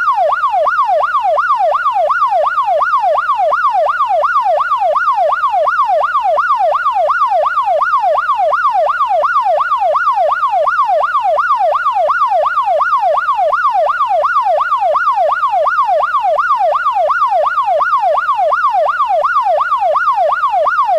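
Police siren on its fast yelp setting: one loud, steady tone sweeping up and down in pitch about twice a second, without a break.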